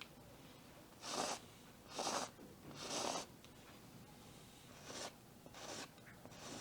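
Faint paintbrush strokes on canvas as whiskers are painted on: about six short scratchy swishes, three a second apart, a pause, then three more closer together.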